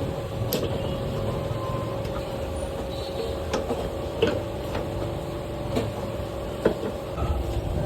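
A few scattered sharp metallic clicks and knocks of tools and bolts as a new rear shock absorber is fitted to a motorcycle, over a steady background hum.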